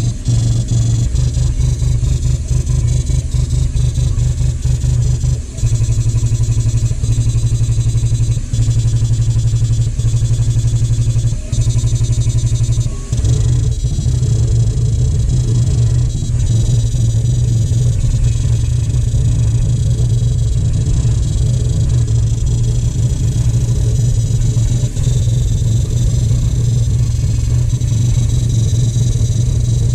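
Mycronic MY600 jet printer jetting dots onto circuit boards: a fast, steady buzz of rapid pulses as the head works, with a few short breaks in the first half.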